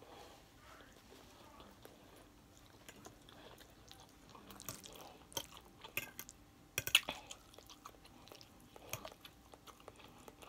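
Close-miked chewing of a mouthful of creamy fettuccine: soft wet mouth smacks and clicks, clustered about halfway through, the sharpest click about seven seconds in.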